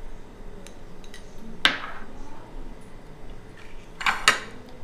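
A metal spoon clinking against a dish while sugar is spooned into the yeast mixture. One sharp clink with a short ring comes about a second and a half in, then a quick cluster of clinks near the end.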